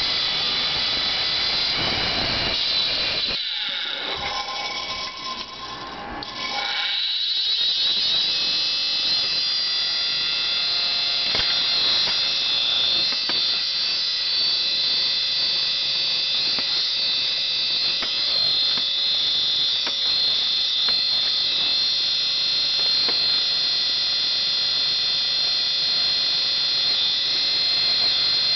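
Opened hard disk drive spinning with a loud, steady, high-pitched shrieking whine. The sound dips about four seconds in, then climbs back in pitch and level and holds steady.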